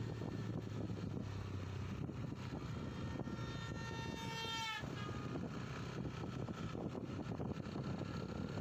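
Yamaha motorcycle engine running steadily at road speed, with wind rush on the microphone. About halfway through a vehicle horn sounds for under two seconds, rising slightly in pitch, and stops abruptly.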